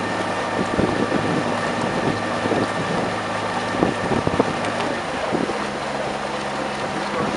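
Wind buffeting the microphone over a steady motor hum, whose pitch shifts about five and a half seconds in.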